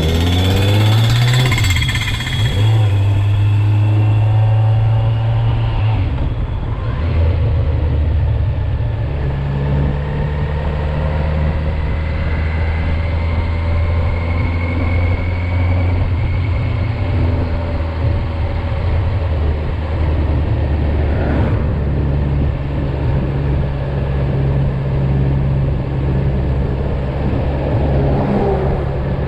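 2019 Kawasaki Z900 inline-four, in its 35 kW A2-restricted form, revving up with a gear change in the first couple of seconds. It then runs at steady revs while riding, with the pitch shifting a little a few times.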